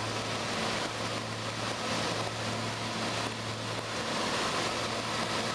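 Aircraft cabin noise in flight: the engines give a steady low hum under a constant rush of air.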